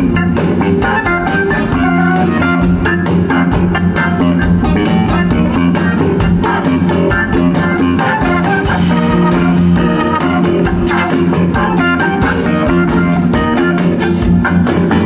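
Live blues-rock band playing an instrumental passage: guitar lead over bass and a steady drum beat, with no singing.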